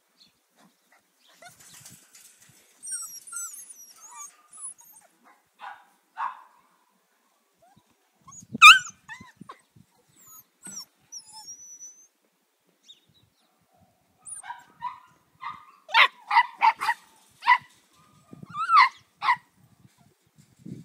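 Seven-week-old Australian labradoodle puppies yapping: one sharp yelp about nine seconds in, then a quick run of about seven high barks near the end.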